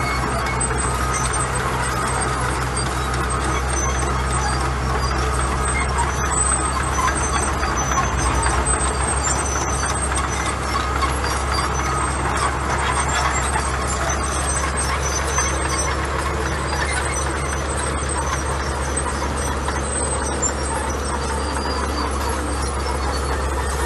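Heavy diesel earthmoving machinery running steadily at work, a loud, even engine drone with a deep low end.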